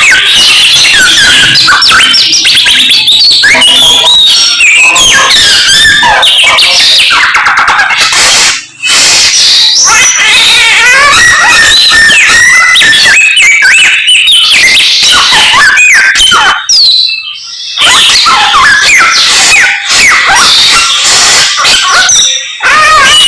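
Samyong songbird singing hard and without pause: a fast, loud run of varied whistles, chirps and trills that slide up and down in pitch, with brief breaks about a third of the way in and again after the middle.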